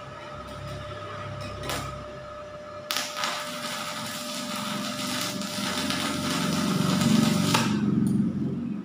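Stick-welding arc from a small 450 W inverter welder at 56 A with a 2 mm electrode, crackling and sizzling after a brief strike, growing louder, then cutting off suddenly near the end as the 2-amp breaker trips and cuts power to the welder.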